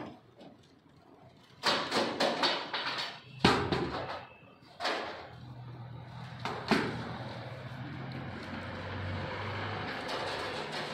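Heavy steel safe doors being swung shut, a run of knocks and clunks, the loudest a sharp knock about three and a half seconds in. A steady low hum runs underneath from about halfway through.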